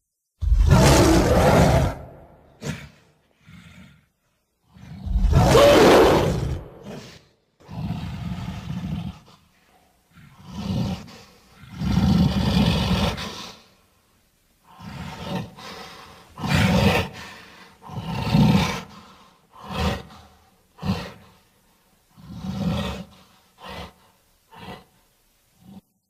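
Creature vocal sound effects for a yeti-like cavewoman: two long, loud roars in the first seven seconds, then a string of shorter growls and grunts, each separated by brief silence.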